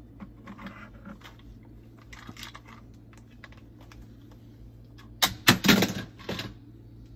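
Plastic toys clicking and rattling as a Moluccan cockatoo rummages through them with its beak, then a loud clatter of several hard knocks about five seconds in.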